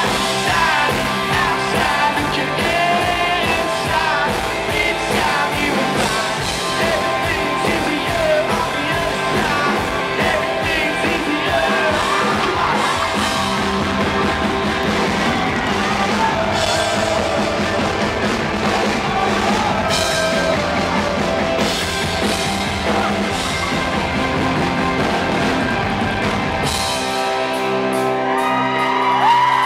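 Live rock band playing, a man singing over electric guitars and drums. About 27 seconds in the drums and bass drop out, leaving held chords and singing.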